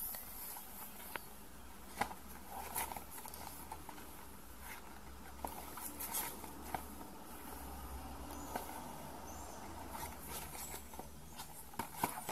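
Cardboard box of a Meiji Kinoko no Yama candy-making kit being handled and turned over by hand: scattered light taps, scrapes and clicks.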